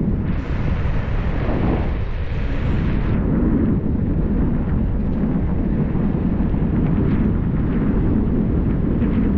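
Wind buffeting the microphone and road noise of a moving vehicle, a steady low rumble, with a louder rushing hiss for about three seconds near the start.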